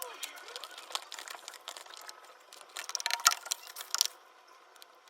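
Irregular small metallic clicks, clinks and rattles of tools and parts being handled, with a denser flurry about three to four seconds in.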